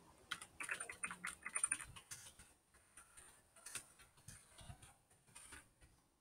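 Faint typing on a computer keyboard: a quick run of key clicks in the first two seconds, then scattered keystrokes.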